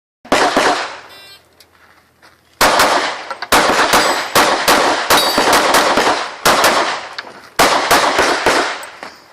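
Pistol fired rapidly through a practical-shooting stage: shots come in quick pairs and short strings about a second apart, each ringing out afterwards.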